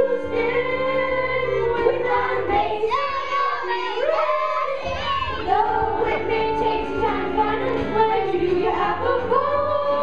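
Children singing a musical-theatre number over instrumental accompaniment, with long held notes.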